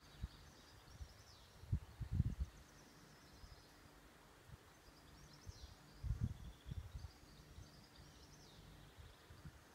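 Small birds chirping and twittering faintly in the background over quiet outdoor ambience. A few short low thuds on the microphone, around two seconds in and again around six seconds, are the loudest sounds.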